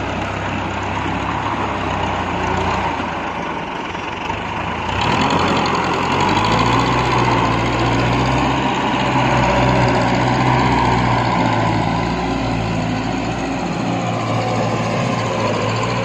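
TAFE tractor's diesel engine running steadily under load, working a rotavator through wet paddy mud; the engine grows louder about five seconds in.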